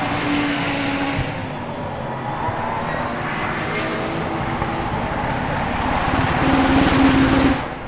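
Race cars going past at speed with engines at high revs. One passes at the start; another grows louder and is loudest near the end, then the sound cuts off suddenly.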